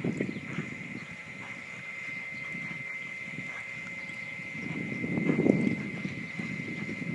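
Cutting horse's hoofbeats thudding on soft arena dirt as it works a cow, uneven and loudest about five seconds in, over a steady high-pitched whine.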